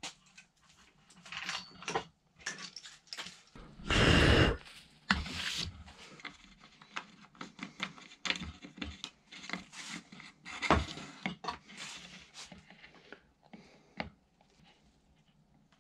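Handling noises from working with tools and parts: scattered clicks, taps and rustles, with one brief loud burst of noise about four seconds in.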